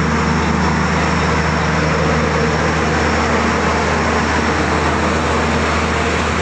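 An engine running steadily under a loud, even hiss. Part of its higher hum drops away about three seconds in.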